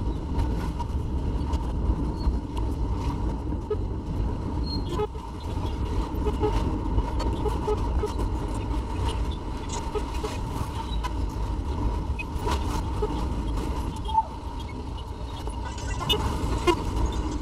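Car driving in city traffic heard from inside the cabin: steady engine and road rumble, with vehicle horns tooting now and then.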